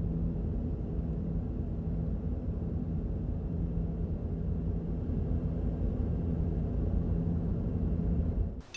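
Low, steady rumble of a car driving along, cutting off suddenly near the end.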